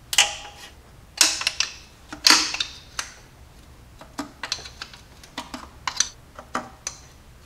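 Hand ratchet with a socket clicking in short runs as 9/16 intake-manifold bolts are loosened. Three louder runs of clicks come in the first three seconds, then lighter single clicks.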